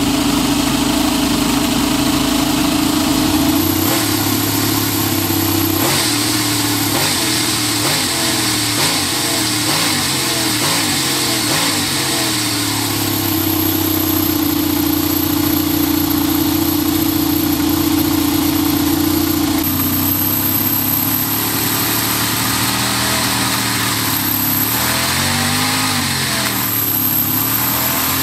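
Howin FS-V800 four-stroke V8 model engine running. It is revved up and down several times, with steady stretches between the revs.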